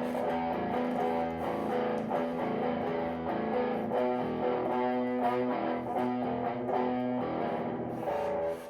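Electric guitar played with distortion through an overdrive pedal into a FoxGear Plex55 pedal amp and speaker cabinet: a riff of ringing, sustained notes and chords. The playing stops just before the end.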